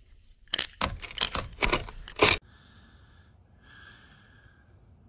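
Small hand winch on home-made composite dinghy davits ratcheting, a run of sharp clicks as the dinghy is hoisted, stopping a little over two seconds in. After that only faint hiss remains.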